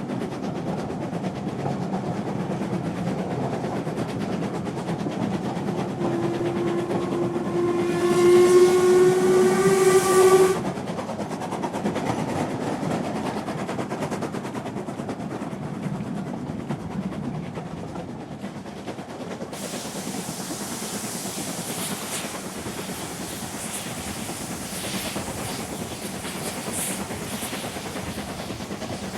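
Train running steadily with a low rumble. About six seconds in a train whistle sounds, a single held tone that swells and rises slightly in pitch before cutting off around ten seconds. From about twenty seconds in, a brighter hiss with rapid clicks joins the running noise.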